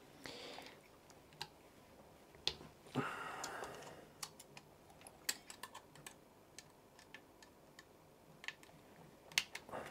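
Small metal clicks and light scraping as screws are undone with a precision screwdriver and a metal mounting bracket is worked off a laptop hard drive. The clicks are sparse and scattered; short scrapes come about half a second in and again at about three seconds.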